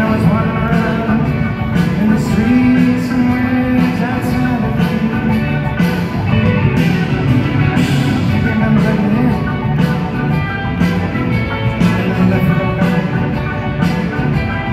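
Live rock band playing loud in concert, with drums, guitars and singing, heard from among the audience of a large amphitheatre.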